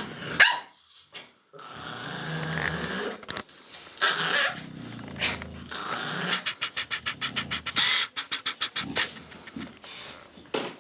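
Dogs growling at each other in long low stretches, with a fast pulsing run of growls past the middle. A few short sharp sounds come in between.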